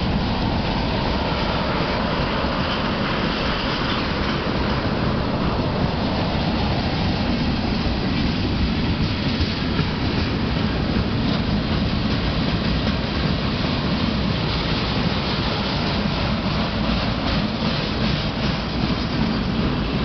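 Freight train cars rolling past, a steady rumble of steel wheels on rail with faint clickety-clack: a covered hopper followed by empty centerbeam flatcars.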